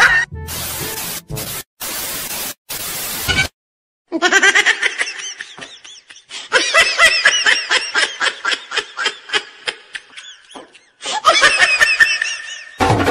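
Laughter in quick repeated bursts of high giggling, starting about four seconds in. Before it come a few seconds of hissing noise that switches on and off abruptly, then a short dead silence.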